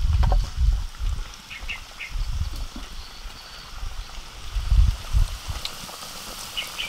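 Floured chicken handled on a metal tray with a few dull low thumps, a few short high calls in the background, and near the end hot oil sizzling steadily as a floured chicken piece goes into the wok.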